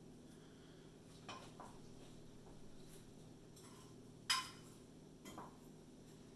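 Faint handling sounds of breading a chicken breast in glass baking dishes: a few light taps and one sharp click about four seconds in, over a steady low hum.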